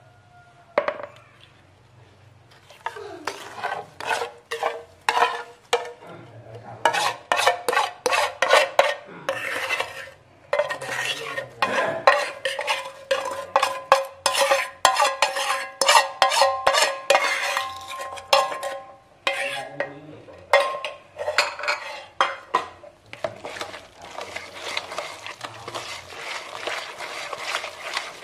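Wire whisk beating thick banana-and-chocolate brownie batter in a plastic mixing bowl: rhythmic scraping and clinking strokes, about two to three a second, with two brief pauses and faster, steadier whisking near the end.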